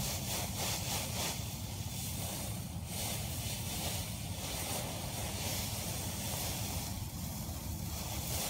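Wind buffeting the microphone: a steady low rumble under a hiss that swells and fades every second or two.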